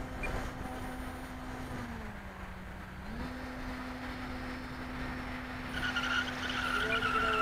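Radio-controlled model airplane's motor and propeller droning steadily overhead, dropping in pitch for about a second as the throttle eases, then back up. Near the end a higher whine rises and grows louder as a plane comes closer, with wind noise on the microphone.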